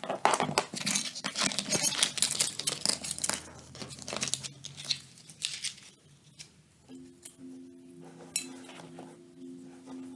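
Handling noises as saxophone parts and accessories are packed back into the case: a quick run of rustles, knocks and light clinks. About six seconds in it quietens, leaving scattered clicks over faint, steady low tones that stop and start.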